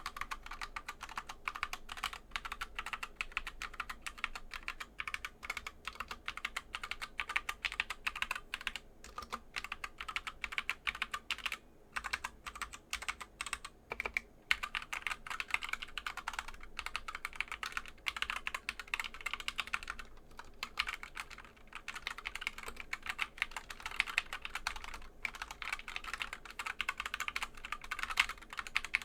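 Fast continuous typing on a 60% mechanical keyboard with Gateron brown tactile switches: a dense stream of key clacks with brief pauses.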